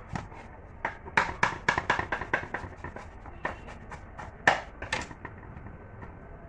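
Kitchen knife slicing a tomato on a plastic cutting board: a quick, uneven run of sharp taps, about four a second, the loudest a little past four seconds in, stopping about five seconds in.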